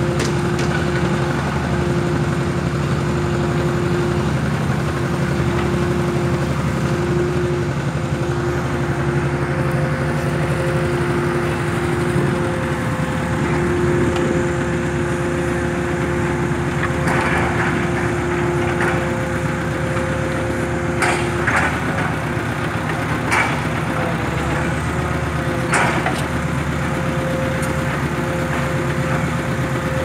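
Hydraulic static pile driver's power unit running steadily with a constant hydraulic whine. One of its tones drops out about two-thirds through. A few sharp knocks and creaks come in the second half.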